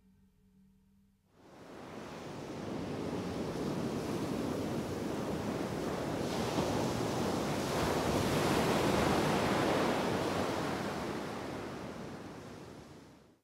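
Surf washing up on a sandy beach: a rushing wash of waves that comes in about a second in, swells to its loudest in the second half, then eases off and cuts off suddenly at the end.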